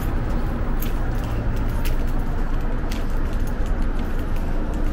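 Steady city street traffic noise, a low rumble throughout, with a few faint sharp clicks now and then.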